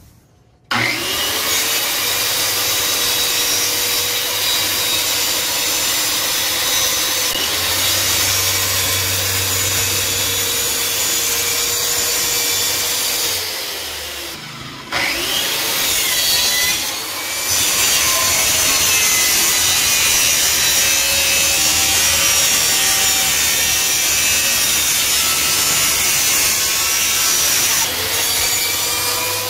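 WEN CT1065 6.5-inch, 10-amp plunge-cut track saw starting up and cutting through a wooden board as it is pushed along its guide rail. The saw noise drops away briefly about halfway, then picks up again and runs on.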